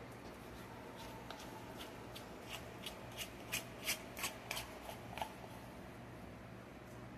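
A utensil scraping thick batter out of a mixing bowl. The scrapes and taps come in a quick irregular run, starting about two and a half seconds in and lasting nearly three seconds.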